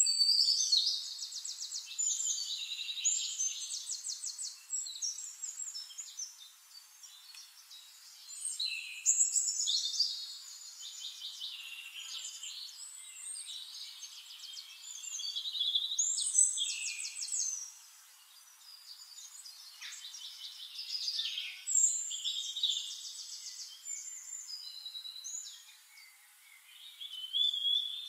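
Songbirds singing: phrases of rapid high trills and chirps, each a few seconds long, with quieter gaps between.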